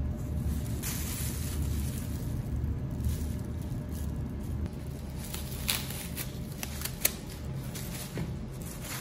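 Plastic bag and paper towel wrapping crinkling and rustling as hands squeeze and unwrap bundled cuttings, with a run of sharper crinkles and one click past the middle. A steady low hum runs underneath.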